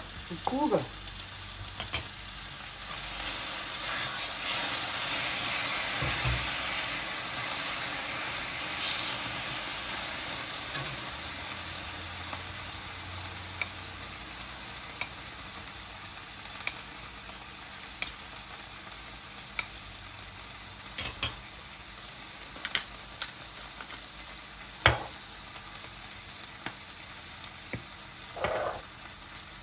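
Food frying in a hot pan: the sizzle swells about three seconds in, then slowly settles. A utensil clinks and scrapes against the pan now and then.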